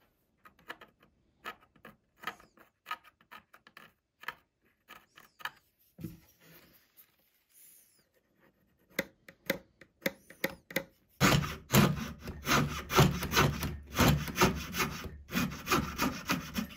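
Light clicks and taps of small wooden model parts being handled. About eleven seconds in, these give way to rasping back-and-forth strokes on wood, about two to three a second.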